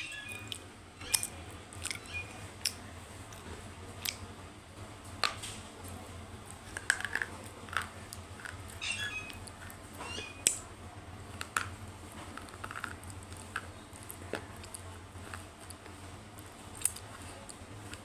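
Scattered sharp crunches and clicks of close-miked eating, a few seconds apart with a crackly cluster in the middle, over a low steady hum.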